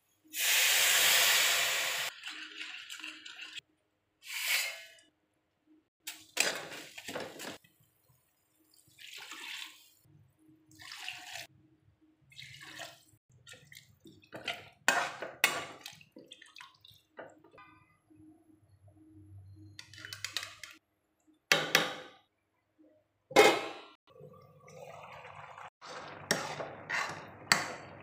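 Water poured into a hot steel kadai of fried onions and masala, giving a loud hiss for about two seconds. Then a slotted steel spatula scrapes and knocks against the kadai in short, irregular strokes as Maggi noodles are stirred in the broth.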